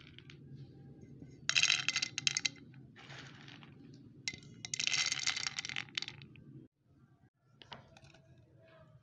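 Roasted chickpeas rattling and clattering as they are scooped from a pan by hand and dropped into a jar, in two bursts about a second long, over a faint low hum that stops near the end.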